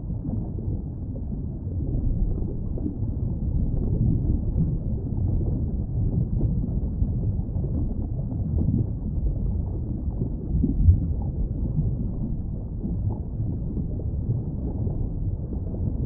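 Underwater ambient noise: a steady low rumble of moving water with nothing higher in pitch, and one brief louder knock about eleven seconds in.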